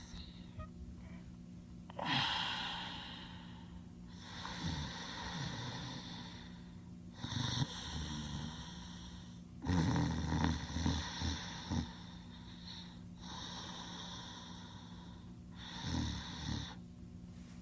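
Cartoon snoring: a run of about six long, drawn-out snoring breaths, each a couple of seconds long with short gaps between. The roughest, loudest snore comes about ten seconds in.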